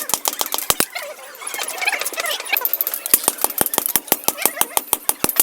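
Rapid, evenly paced hammer strikes on metal, about five or six a second, as a blade is forged. They stop for about two seconds in the middle, when a faint wavering squeal is heard, then start again.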